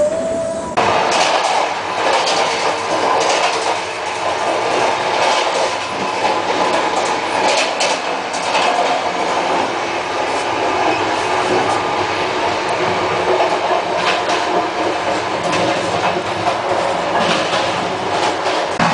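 Running noise of a moving Indian Railways passenger coach heard inside its washroom: a loud, steady rumble and rush from the wheels and track, with scattered knocks and rattles. The noise suddenly gets louder about a second in.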